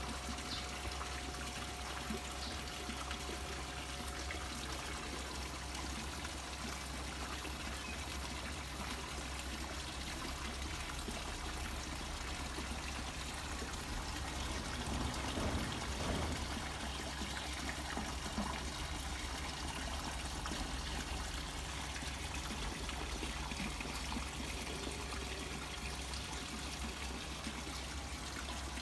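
Water steadily trickling and splashing into a koi pond, a little louder for a moment about halfway through.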